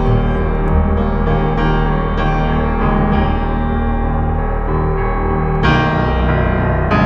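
Background music with piano, sustained notes and chords, and a new chord struck near the end.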